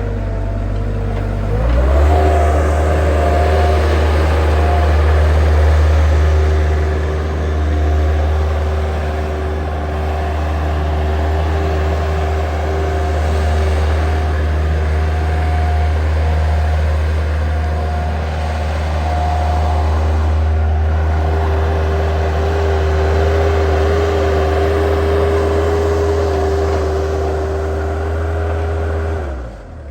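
Bobcat 763 skid steer's diesel engine throttling up about two seconds in, then running steadily at high speed with a whine over the engine note, before dropping back toward idle near the end.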